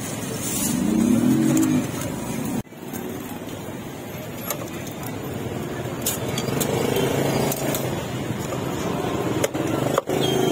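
Street traffic noise, a steady mix of passing motorbikes and cars, with a few sharp knocks scattered through it.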